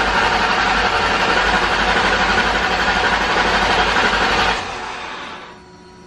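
Supercharged 4.6-litre V8 of a 2003–04 Mustang SVT Cobra cranking over on the starter without catching, then stopping sharply about four and a half seconds in. It is a no-start that the owner puts down to a fault in the fuel system.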